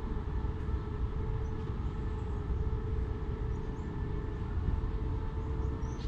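Distant diesel locomotive running: a steady low rumble with an even hum over it.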